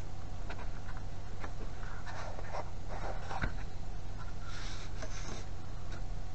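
Pen drawing lines on EVA foam tile: several short scratchy strokes, with a single sharp knock about halfway, over a steady low hum.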